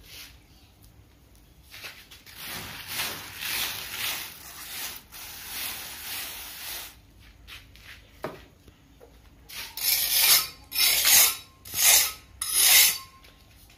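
Hand float rubbing over fresh cement plaster to smooth and finish it: a run of scraping strokes, then four loud sweeps near the end.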